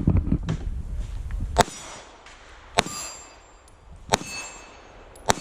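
Springfield Armory EMP semi-automatic pistol firing a timed string of about four shots, roughly a second apart. Struck steel targets ring after several of the hits.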